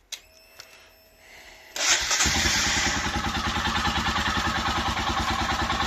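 Royal Enfield Himalayan's single-cylinder engine started on the electric starter a little under two seconds in, after a faint steady whine, then idling steadily.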